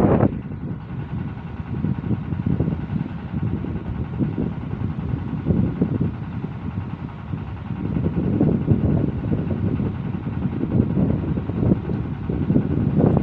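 Strong wind buffeting the microphone: a gusting low rumble that swells and fades, stronger from about eight seconds in.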